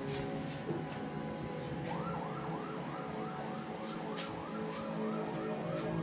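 Background music with a steady beat; about two seconds in, a fast warbling siren-like wail joins it, rising and falling three or four times a second.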